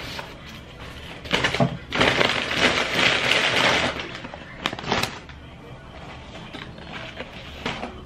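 Crinkling and rustling of handled packaging, loudest for about two seconds around the middle, followed by a couple of sharp clicks.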